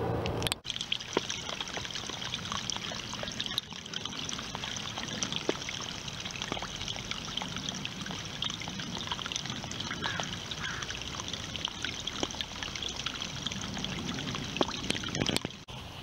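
Shallow water trickling and running over a stone slab, a steady splashing hiss that starts abruptly about half a second in and stops just before the end.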